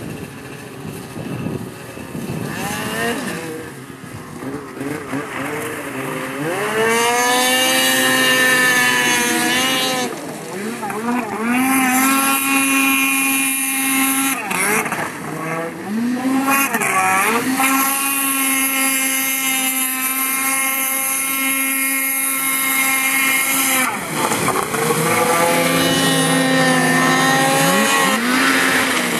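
A small, high-revving vehicle engine repeatedly revs up, holds a high, steady pitch for a few seconds, then drops back. This happens about four times, after a quieter, uneven start.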